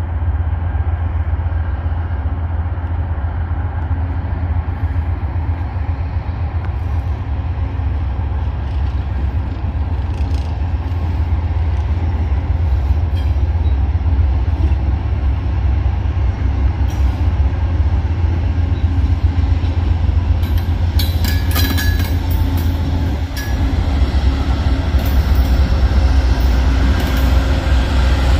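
Amtrak GE Genesis diesel locomotives, a P42 leading and a P40 trailing, pulling the passenger train past: a steady low diesel drone that slowly grows louder, with sharp clicks and squeaks of wheels on rail in the second half.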